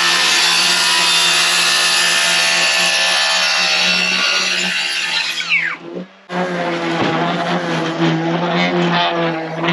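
DeWalt cordless circular saw spinning up and cutting through a sheet of plywood, its whine falling away as the blade winds down about five and a half seconds in. After a brief break, a steady droning hum runs on.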